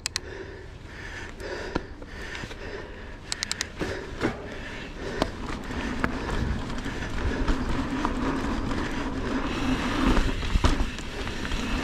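Polygon Siskiu T7 mountain bike riding down a dirt trail. It starts with scattered clicks and rattles. From about halfway, a rush of tyre and wind noise builds as it gathers speed, with a few sharp knocks near the end.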